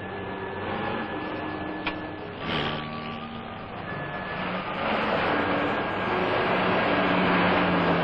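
Heavy road traffic: truck and car engines running, with several long steady tones sounding over it, like vehicle horns. A short hiss comes about two and a half seconds in, and the traffic noise grows louder from about five seconds.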